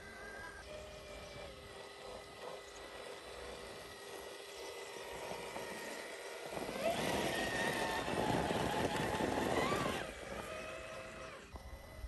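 Electric motor and gearbox whine of a Crossrc AT6 6x6 RC rock crawler, with short rises and falls in pitch as the throttle changes. About halfway through it grows much louder and rougher for around three seconds as the truck climbs a rock face under load, then drops back.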